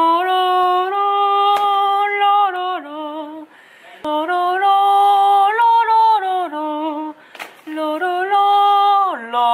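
Wordless singing: one voice holding long notes that step up and down in pitch, in a few phrases with short breaks between them.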